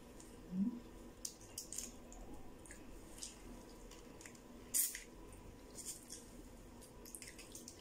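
Wet mouth sounds of eating shrimp by hand: scattered short smacks and slurps, the loudest a little under five seconds in. There is a brief hum about half a second in.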